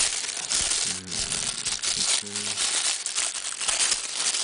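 Thin clear plastic packaging bag crinkling and rustling as hands work it open, with no let-up.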